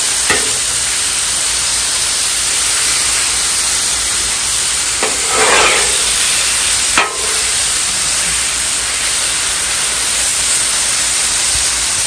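Diced chicken sizzling in olive oil on a steel Blackstone flat-top griddle, with a few scrapes of a metal spatula across the steel as the pieces are pushed into a pile, the longest about five to six seconds in.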